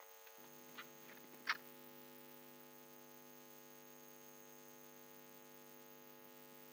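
Near silence with a faint steady electrical hum, and a small click about a second and a half in.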